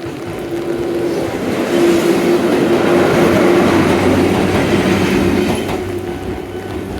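A Toyama Chihō Railway 10030-series electric train passing close by, its rumble swelling to a peak in the middle and then fading. A steady ringing tone from the faulty level-crossing warning device runs underneath.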